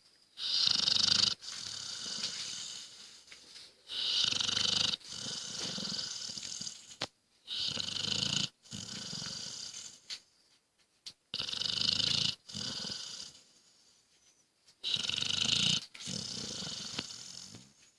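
Pit bull dog snoring: five loud snores, each about a second long, come at an even pace about every three and a half to four seconds. Each one is followed by a softer, longer breath.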